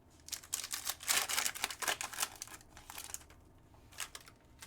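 Trading cards being handled and flipped through: a quick run of crisp clicks and rustles for about three seconds, then one more click near the end.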